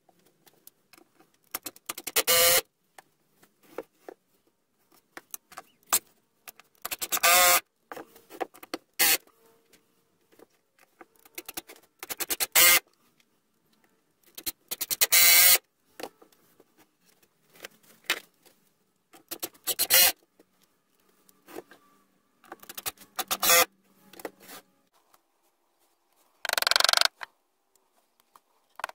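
Cordless impact driver driving screws into a pine timber frame in short bursts of under a second, about seven times, with faint handling clicks between.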